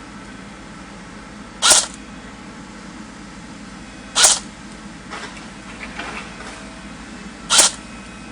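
CYMA AK47 airsoft electric rifle firing three separate short shots, each a sharp hiss-like pop, roughly two and a half to three and a half seconds apart.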